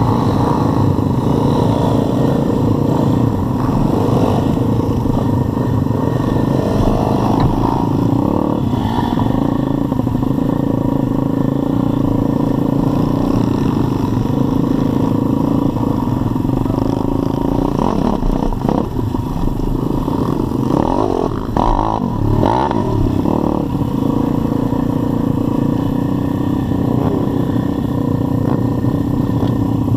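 Pit bike engines running at low speed as a group rides slowly over dirt, the nearest bike's engine steady and loud. About two-thirds of the way through, engine revs rise and fall a few times.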